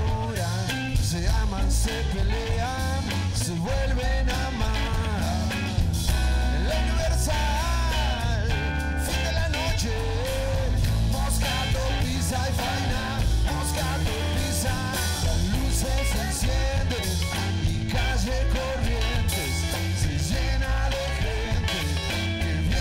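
Rock band playing live: drum kit, guitars and bass.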